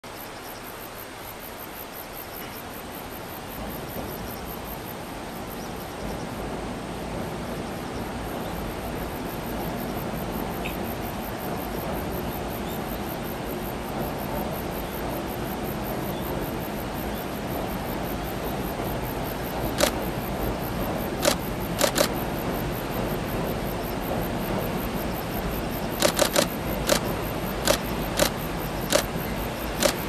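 A KiHa diesel railcar train crosses a steel truss bridge with a steady rumble of engine and wheels that slowly grows louder. From about two-thirds of the way through come sharp clacks of the wheels over rail joints, in pairs and small groups.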